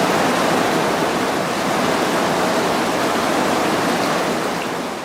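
Heavy thunderstorm rain pouring down, a loud steady hiss of water.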